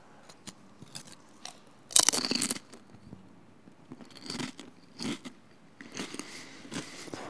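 A crunchy snack being bitten and chewed right at a microphone, ASMR-style. There is one loud crunch about two seconds in, followed by shorter bursts of crunchy chewing.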